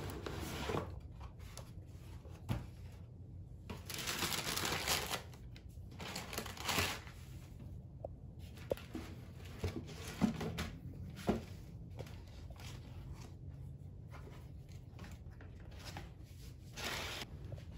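Shoe box being unpacked: tissue paper rustling in bursts, about four seconds in, near seven seconds and again near the end, with a few light knocks from the cardboard box and the boots being handled.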